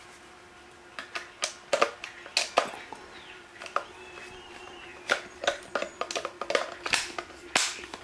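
Plastic clicks and knocks as the detachable dust cup of a Proscenic P6 handheld vacuum is handled and snapped back onto the motor body, with the motor off. The sharp, irregular clicks and rattles start about a second in and keep coming until near the end.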